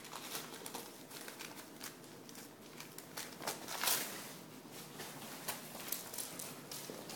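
Newspaper crinkling and rustling in irregular bursts as a puppy tears and worries at it, loudest about four seconds in.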